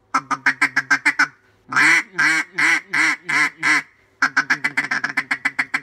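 Lynch Mob Jezebel duck call blown by mouth: a fast chatter of short quacks, then six longer, louder quacks about three a second, then after a brief pause another fast run of short quacks.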